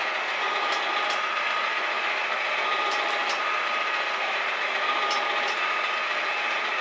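Metal shaper cutting a steel bar, a salvaged conveyor drive roller: steady mechanical running with a pair of sharp clicks about every two seconds.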